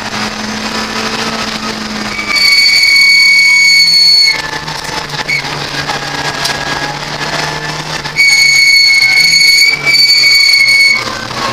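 Ford Fiesta race car's engine running, heard from inside the cabin during a lap, its note dropping and picking up again. A loud, steady high-pitched tone cuts in about two seconds in for about two seconds, and again about eight seconds in for about three seconds with a short break.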